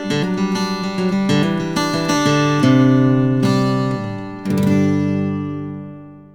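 Background music, acoustic guitar picking and strumming, ending on a final chord that fades out.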